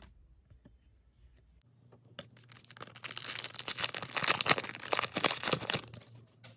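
A trading-card pack's foil wrapper being torn open and crinkled: a crackling rip that starts about three seconds in and lasts about three seconds, after a single click.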